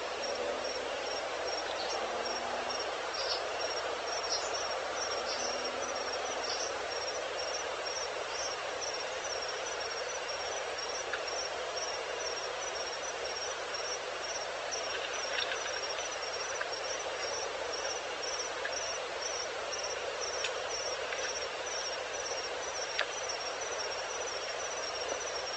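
Evening outdoor ambience: an insect chirping at an even, steady pace in one high pitch over a constant hiss of background noise, with a few brief faint chirps here and there.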